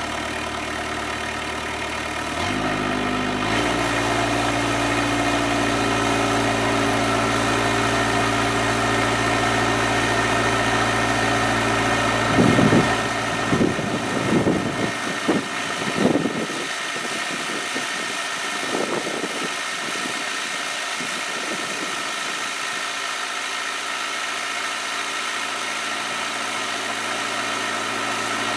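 Kubota B7800 tractor's diesel engine running, its pitch stepping up about two seconds in as it is brought up to speed to drive the PTO post hole auger. From about twelve seconds in the sound turns uneven for several seconds as the auger bites into the ground, then settles to a steady run.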